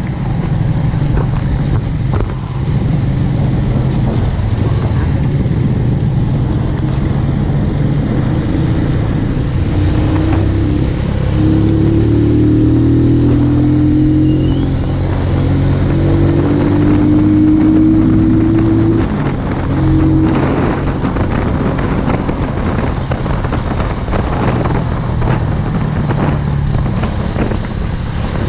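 Benelli Motobi 200 Evo's single-cylinder engine running under way, heard from the rider's seat with wind rushing over the microphone. The engine note steps up and gets a little louder for several seconds in the middle, then drops back.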